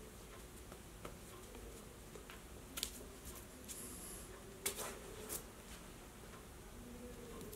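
Quiet room tone with a few faint, soft clicks and taps from a person's hands and mouth while signing.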